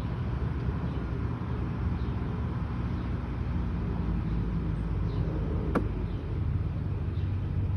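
Steady low rumble of distant road traffic, with a single sharp click about six seconds in.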